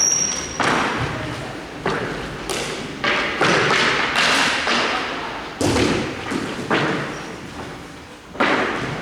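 A series of hard thumps, about a dozen at irregular spacing, each trailing off in a ringing echo.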